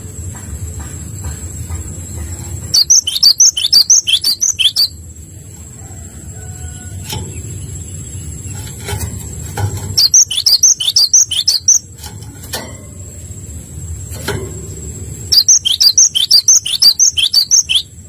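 A gelatik songbird singing three bouts of rapid, high, repeated notes, each bout lasting about two seconds. Between the bouts there is a low steady background rumble.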